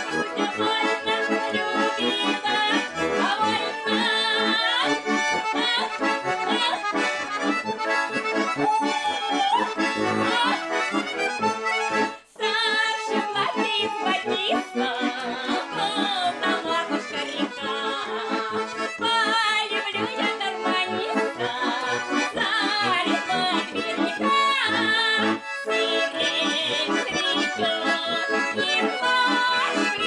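A Russian garmon and a button accordion play a lively folk song together, with a woman singing along. The music breaks off for a moment about twelve seconds in.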